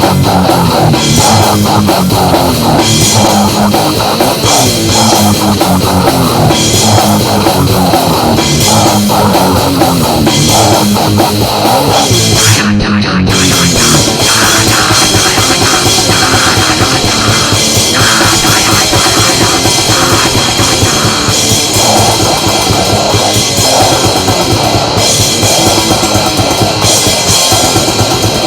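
Loud heavy metal music with a drum kit and guitar, playing without a break.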